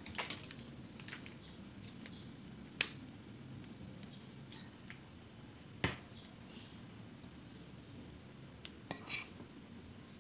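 A few sharp clicks and knocks as a spoon and a mayonnaise pouch are handled over a glass salad bowl at a table. The loudest click comes about three seconds in and another about six seconds in, with faint room noise between.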